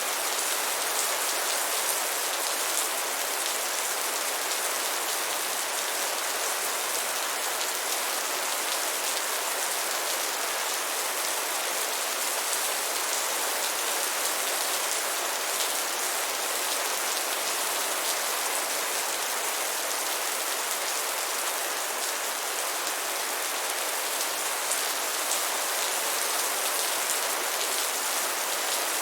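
Steady rain falling, an even hiss made of countless small drop ticks, unchanging in strength.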